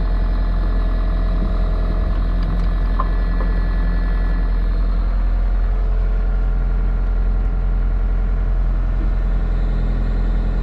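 Volvo EC55 mini excavator's diesel engine running steadily, with a slight change in its tone about halfway through.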